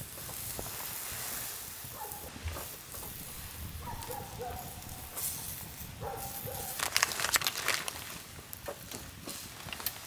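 Campfire hissing and crackling under a small wire grill as slices of beef striploin are laid on to sizzle, with sharp clicks and crackles that are busiest about seven seconds in.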